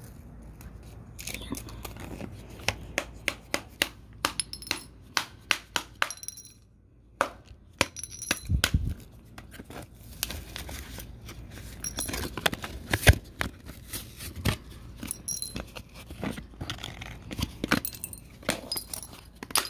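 Small round metal eyeshadow pans from a ZOEVA Caramel Melange palette clinking and rattling on concrete as the palette is pulled apart: many quick, sharp clicks and taps, with a short lull partway through and a low thud near the middle.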